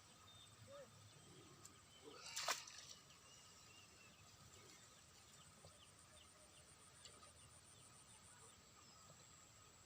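Quiet outdoor ambience with faint, scattered short bird chirps and one brief, louder call or knock about two and a half seconds in.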